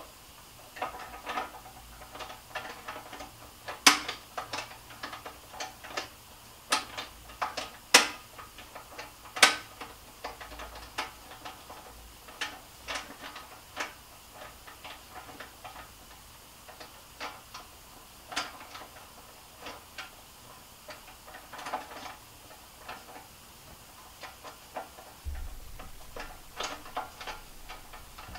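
Hand assembly of a racket stringing machine's table and stand: irregular clicks and taps of parts and fasteners being worked, with a few sharper knocks about four, eight and nine and a half seconds in.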